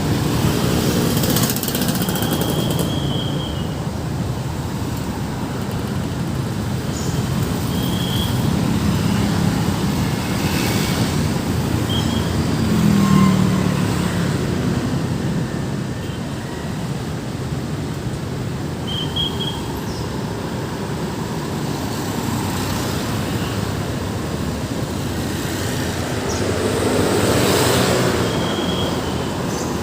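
Busy road traffic passing steadily, with a continuous engine and tyre rumble. Louder vehicles go by about a second in, around ten and thirteen seconds, and again near the end, and a few short high chirps sound now and then.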